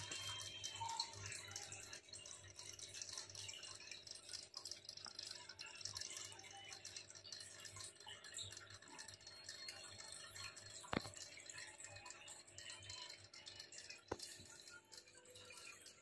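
Faint steady hum with water trickling from an aquarium's filter. Two sharp clicks, one about eleven seconds in and another about three seconds later.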